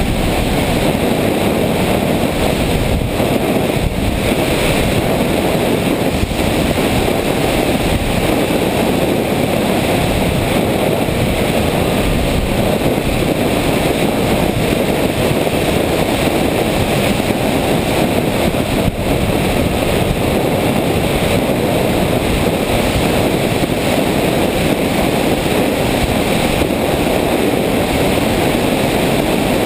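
Steady rush of wind over the onboard camera microphone of a radio-controlled FPV plane in flight.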